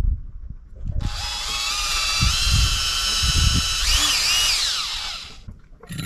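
Cordless drill boring into a fresh coconut: the motor whines steadily, its pitch wavering twice under load near the end before it falls away as the drill winds down.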